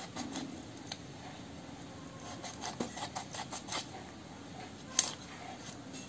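Knife cutting through a rooster's neck to take off the head: a run of small clicks and scraping ticks, with one sharper click about five seconds in.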